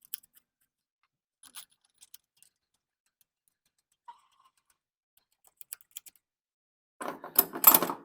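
Sparse small metallic clicks and taps as carburetor mounting bolts are fitted by hand, then a burst of rapid clicking near the end from a ratchet wrench running the bolts in.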